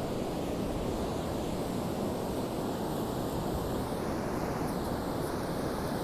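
Ocean surf breaking and washing up a sandy beach, a steady rushing noise, with wind on the microphone.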